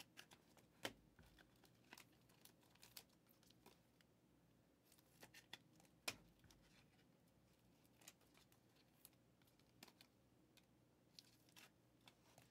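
Faint crinkling and scattered clicks of trading cards being handled and slid into clear plastic card sleeves and top loaders.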